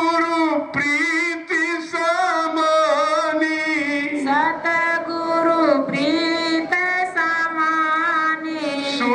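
Devotional bhajan sung in long, drawn-out notes that waver and bend in pitch, by a single voice.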